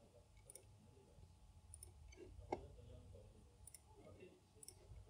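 Near silence with about half a dozen faint computer mouse clicks spread a second or so apart, one louder about midway, over a low steady hum.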